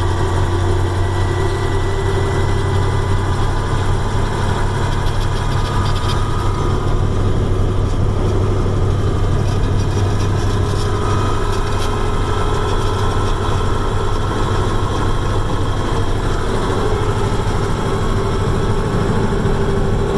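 1989 Mack Superliner's E9 V8 diesel running steadily as the truck drives down the road, heard from inside the cab.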